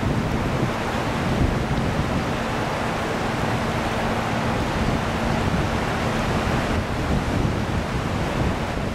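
Wind rushing over the microphone with the noise of water, steady throughout, over a faint low hum.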